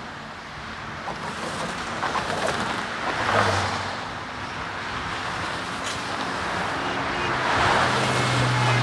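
Cars passing by: traffic noise swelling and fading several times and growing louder, with a low steady hum joining near the end.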